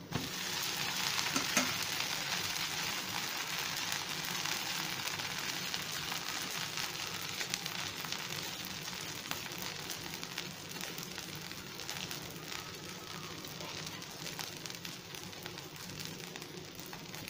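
Dosa sizzling in oil on a hot tawa, a steady crackling hiss that starts sharply as it is turned over and slowly dies down as it crisps.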